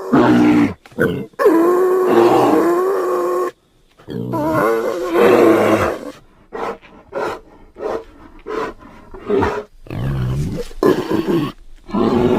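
Creature sound effect for a made-up 'hog bear', mixed from grizzly bear and wild boar recordings: long, loud roars, then a run of short grunts, then roars again near the end.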